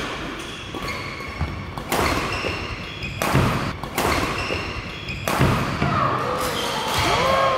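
Doubles badminton rally: sharp racket strikes on the shuttlecock every second or two, over players' thudding footsteps on the court floor, with shoes squeaking near the end.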